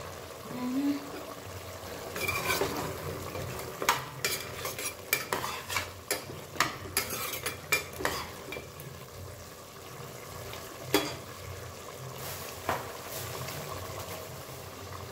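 Metal spoon stirring and scraping in a cooking pot, with repeated sharp clinks of metal on metal, most of them in the first half. Food sizzles steadily in the pan underneath.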